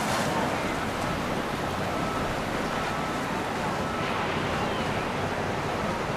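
Steady rushing noise of wind and water, with a faint high steady tone joining from about two seconds in.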